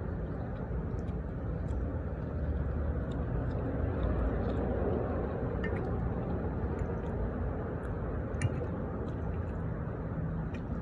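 Steady low rumble of a restaurant dining room, with a few faint clinks of cutlery and dishes scattered through it.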